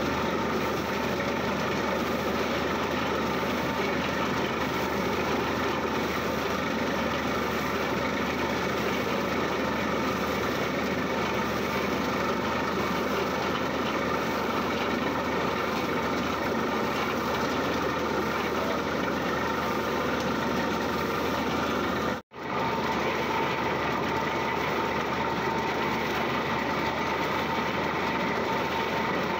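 Borewell drilling rig drilling, its drill rod turning in the borehole: a steady, dense mechanical noise at an even level. It cuts out for a split second about three-quarters of the way through.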